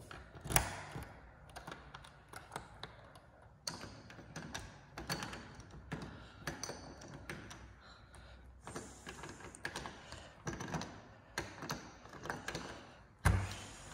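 Irregular clicks, taps and knocks from a key and handle working the lock of a back door, with a sharp knock about half a second in and a louder thud near the end as the door comes open.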